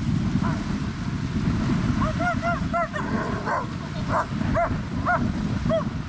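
A dog giving a string of about ten short, high yips, most of them from about two seconds in, over steady wind and lapping waves.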